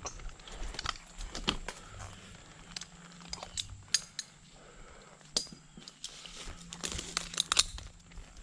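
Scattered light metallic clinks, taps and knocks of a tree climber's gear as he moves about in the tree; the chainsaw is not running.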